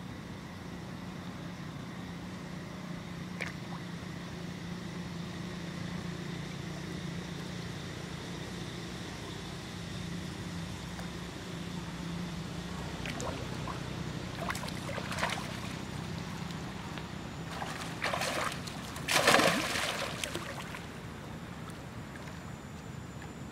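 Macaques splashing and sloshing in a shallow pond as they scuffle in the water, a run of splashes in the second half, the loudest about twenty seconds in. A steady low hum runs underneath.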